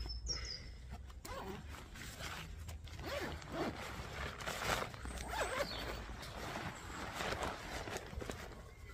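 Zip on a blue nylon tent bag being undone, followed by nylon fabric rustling as the contents are pulled out.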